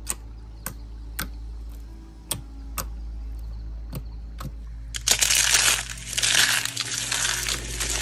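Cut soap being crushed in the hands: a loud, dry crunching and crackling that starts about five seconds in. Before it there are only regular sharp clicks, about two a second, over a low steady hum.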